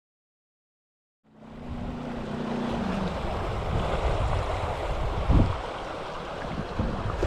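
After about a second of silence, shallow river water rushing steadily over stones in a riffle, with a single low knock about five seconds in.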